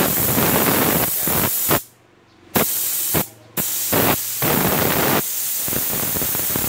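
Anest Iwata W-50-124BPG mini spray gun hissing steadily with compressed air as its trigger is worked. The hiss cuts off sharply twice, about two and three seconds in, and starts again each time the trigger is released and pulled again.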